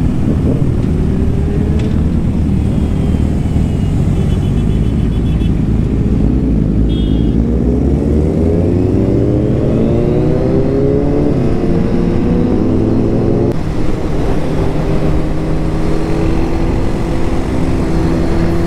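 Motorcycle engine under acceleration, its pitch rising steadily as the revs climb, then dropping abruptly at an upshift about two-thirds of the way through and holding steady at higher road speed. Wind and road rumble underneath.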